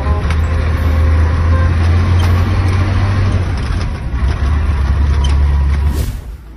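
Truck engine running with a steady low hum, heard inside the cab while driving slowly through rain, under a constant hiss of rain and wet road. The sound cuts off sharply about six seconds in.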